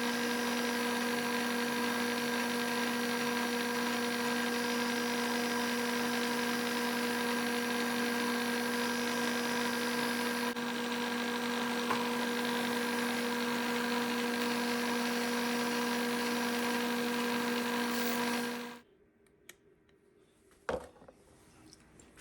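Bridgeport milling machine running with a steady hum, as during center drilling and drilling of a steel part. It stops abruptly near the end, followed by a light knock.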